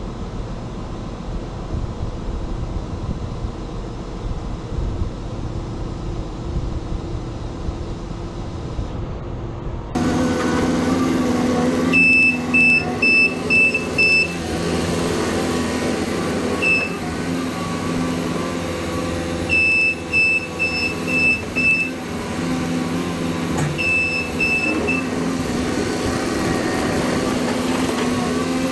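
Diesel engines running at a low steady rumble; about a third of the way in this turns louder, as a JCB compact track loader works with its reversing alarm sounding in several short runs of quick, even beeps.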